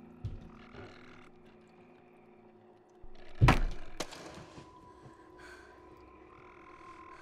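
Horror-film sound design over a low ambient drone: a soft thump just after the start, then a loud sudden thud a little over three seconds in, followed by a sharp knock, after which a steady high tone holds.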